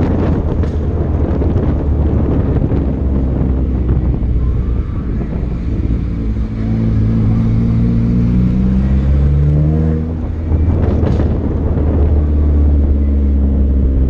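Car engine and exhaust while driving, with road and wind noise on a camera held out of the car's window. About halfway through, the engine note climbs steadily as the car accelerates, breaks off briefly, then settles back to a steady drone.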